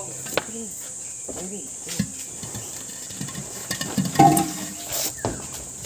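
Steady high-pitched insect drone, with scattered knocks and thumps from pots and materials being handled in the back of a truck, the loudest about four seconds in.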